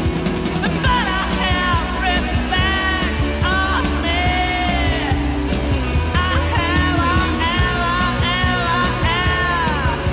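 Rock band playing on a cassette demo recording, with drums and guitar. From about a second in, a high part slides and bends in pitch over the band.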